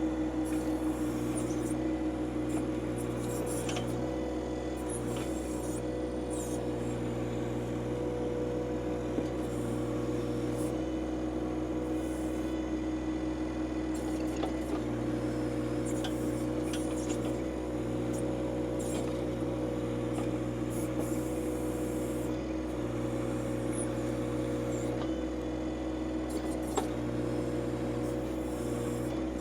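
John Deere 2025R compact tractor's diesel engine running at a steady speed, a constant hum with a few faint clicks and knocks over it.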